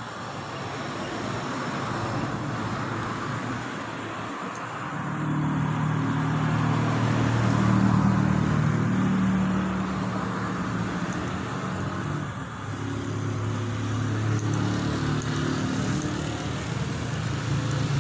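Road traffic: a motor vehicle's engine running with a steady low hum from about four seconds in, over a rushing noise that swells and eases.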